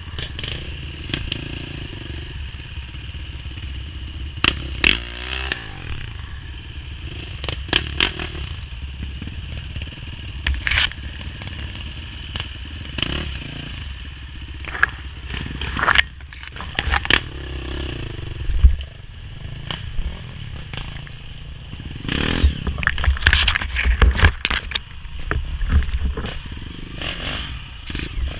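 Dirt bike engine running at low revs on a slow trail climb, with branches and brush scraping and slapping against the bike and rider in frequent sharp clatters, busier and louder near the end.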